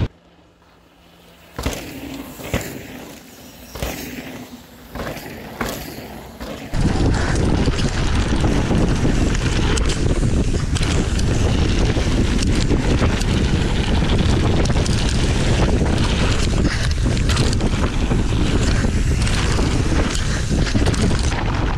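Wind buffeting an action camera's microphone, mixed with mountain-bike tyres on a dirt trail as the bike is ridden downhill. The first few seconds are quieter, with a faint steady hum and separate knocks and rattles from the bike over bumps; about seven seconds in, loud steady wind rush takes over.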